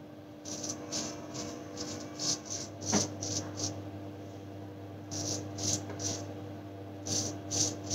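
A replaceable-blade straight razor scraping through lathered stubble on the jaw and neck in short strokes, coming in several quick runs with pauses between. A faint steady hum runs underneath.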